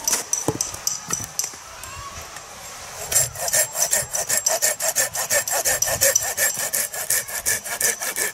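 Hand saw cutting a short log of firewood on a chopping stump, in quick, even back-and-forth strokes, about three to four a second, from about three seconds in. Before the sawing there are a few knocks.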